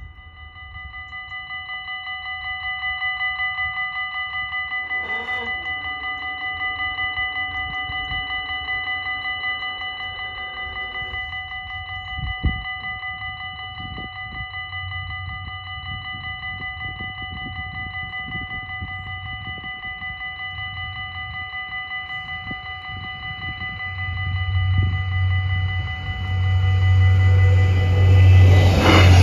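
Dutch level-crossing bells ringing rapidly and continuously. About five seconds in, the barrier mechanism hums for some six seconds as the two booms lower, then a single thump. Near the end the low rumble of an approaching Stadler GTW diesel multiple unit grows louder.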